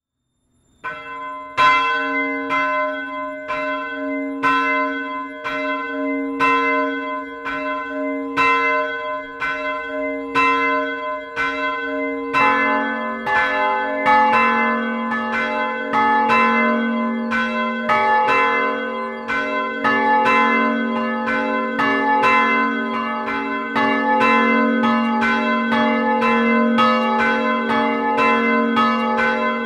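Two swinging church bells ringing. A higher bell rings alone at first, struck about once a second. About twelve seconds in, a lower-pitched bell joins it and the two ring on together.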